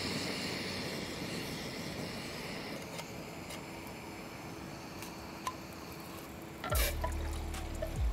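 Water being poured into a Jetboil camping stove's cooking cup, with a steady hiss in the first few seconds. Near the end there is a sharp clatter, then music with a deep bass beat comes in.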